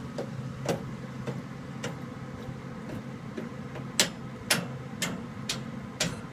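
Furnace clicking repeatedly, sharp clicks coming about twice a second over a steady low hum. The owner can't tell whether the clicking comes from the pipes or the valve.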